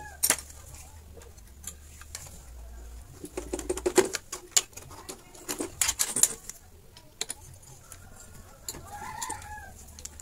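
Scattered clicks, taps and knocks of a TV circuit board and tools being handled, busiest in the middle, over a low hum. A bird calls briefly near the end.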